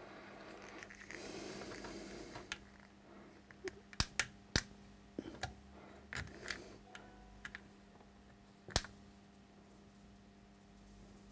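A handful of sharp clicks and taps as fingers handle components and test leads on an amplifier circuit board, the last click the loudest, over a steady low electrical hum.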